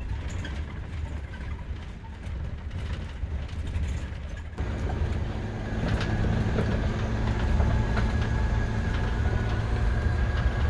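Camper van driving over a washboard gravel road, heard from inside the cab: a low road rumble with constant rattling and jolting. About four and a half seconds in it gets louder and a steady hum joins the rumble.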